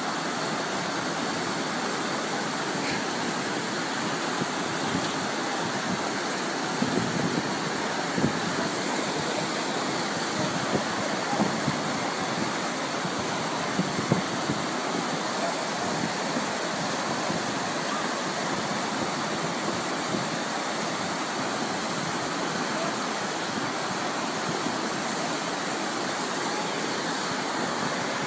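Floodwater rushing down a street in a steady, unbroken roar of moving water.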